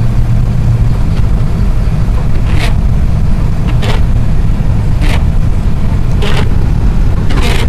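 Cabin noise of a four-wheel-drive vehicle driving slowly on icy roads: a steady low rumble of engine and tyres. From about two and a half seconds in, a short swish repeats about every second and a quarter, five times.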